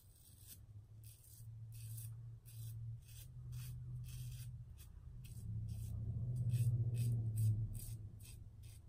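Double-edge safety razor (Merkur 34C with a Treet Black Carbon blade) scraping through lathered stubble in short strokes, about two a second, with a low hum underneath that swells in the middle.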